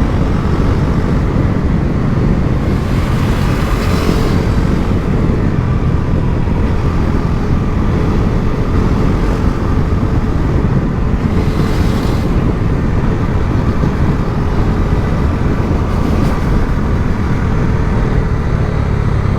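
Bajaj Pulsar NS400Z single-cylinder motorcycle being ridden on a road: a steady, heavy rumble of engine and road noise, with brief hissy swells a few times.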